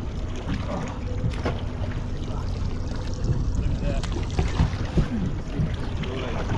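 A boat's engine running steadily at idle, with wind and water around it and faint voices in the background.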